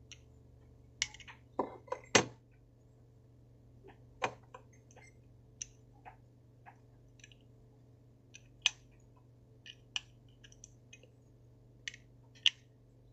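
Irregular sharp clicks and light metal knocks from handling a cheap Zippo-style petrol lighter and its insert, the loudest about two seconds in.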